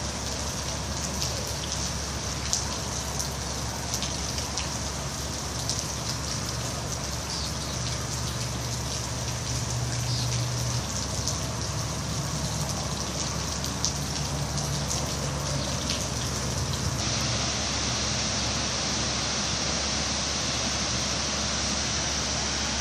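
Raindrops pattering onto floodwater: a steady hiss full of small drop ticks. About three quarters of the way in, the ticks stop and a smoother, steady hiss remains.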